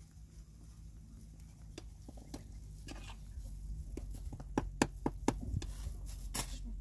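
Cookware clinking and knocking at a small stone hearth. A quick run of four or five sharp clicks comes about two thirds of the way in, over a low steady rumble.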